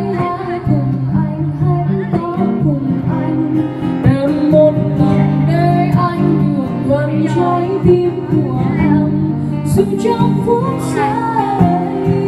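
Live acoustic performance of a Vietnamese pop song: a woman singing into a microphone over a strummed acoustic guitar.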